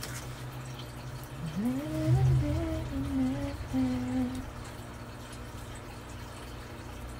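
A voice humming a short, wavering tune, starting about a second and a half in and dying away by about four and a half seconds, over a steady low hum.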